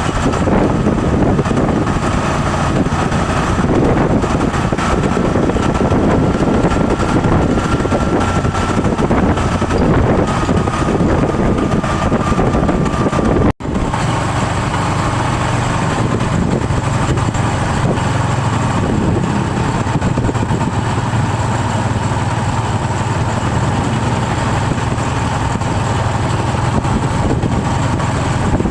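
Bus engine running with a long held high tone over it, the sustained sound of a basuri-type telolet horn. The sound drops out for an instant about halfway through, and after that the tone continues slightly lower.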